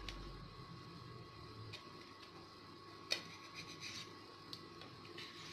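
Kitchen knife cutting through a bread omelette on a plate: a few faint clicks and taps as the blade meets the plate, with soft scraping, and one sharper tap about three seconds in. A faint steady hum sits underneath.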